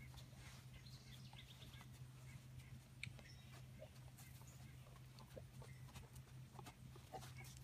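Near silence: faint outdoor ambience with a steady low hum and scattered faint ticks and short high chirps.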